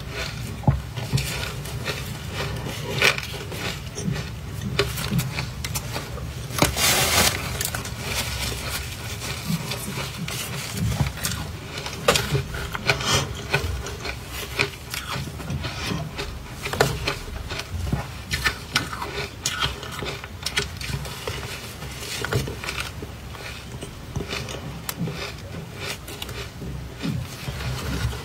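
Powdery ice dusted with matcha powder crunching, in a dense run of crackles: bites and chewing close to the microphone, and gloved hands squeezing and scooping the ice in a plastic bowl. There is a louder, denser stretch of crunching about seven seconds in.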